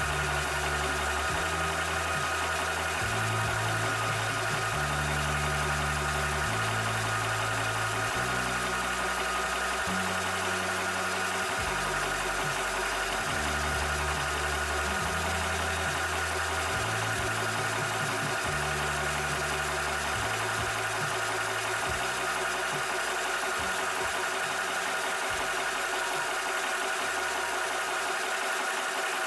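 Cobra 300-bar (4500 psi) PCP air compressor running steadily while pumping: a constant machine hum with a steady whine over it.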